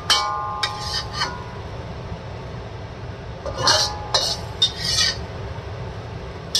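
Metal spatula scraping and clinking against a metal wok while the last of a stir-fry is scooped out. There are several sharp, briefly ringing clinks, a few in the first second and another group about three and a half to five seconds in, over a steady low hum.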